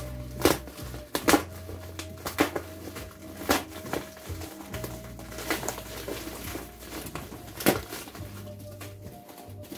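Clear plastic wrapping on a parcel crinkling and crackling as it is pulled and torn open by hand, with irregular sharp crackles. Background music with a low, steady bass underneath.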